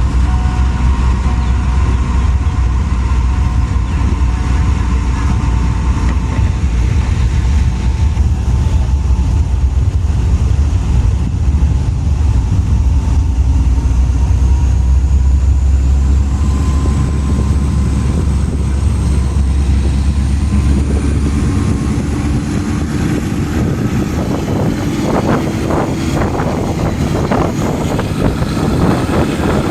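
Diesel train running, with a heavy low engine rumble and a faint high whine that slowly rises in pitch. About 21 seconds in the low rumble drops away, and near the end a run of clanks and knocks follows.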